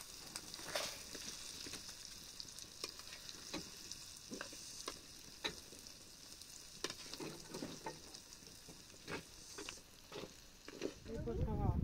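Food sizzling in a pan while a utensil stirs it, giving scattered sharp clicks over the steady hiss. The sizzle stops suddenly near the end.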